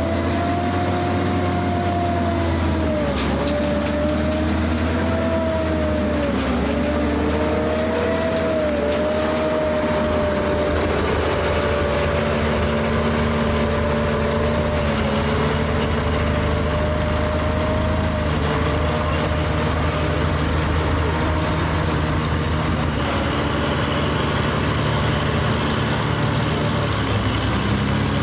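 Panzer IV Ausf. H tank engine running steadily with a low hum as the tank drives on its tracks through mud, with a whine from the drive that rises and dips in repeated arcs for the first ten seconds or so, then settles to a steadier tone.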